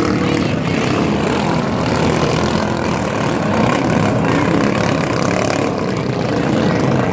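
Engines of flat-bottom racing boats running, a loud, steady drone.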